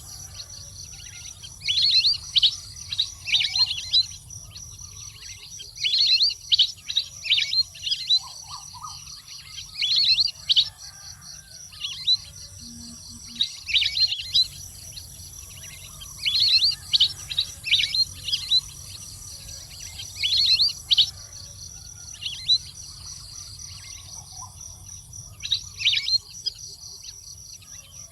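A waterbird, which the title calls a water duck ('nok pet nam'), calling in clusters of rapid, short, high squeaky notes that sweep downward, a burst every few seconds. A steady high insect drone runs underneath.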